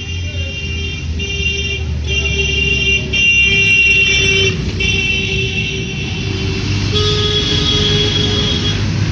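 Street traffic with engines running underneath and a vehicle horn sounding in several long blasts. A differently pitched horn sounds for about two seconds near the end.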